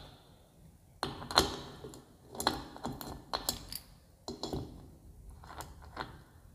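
Irregular metallic clicks and clinks as a bearing puller and spanner are fitted around the bottom bearing of a ceiling fan motor's rotor, about ten separate taps, the sharpest in the first half.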